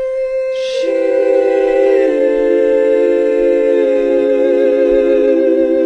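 A wordless choir-like chord, sung or hummed and held steadily. One note starts it, more voices join about a second in, and the chord shifts about two seconds in. It works as a comic musical sting.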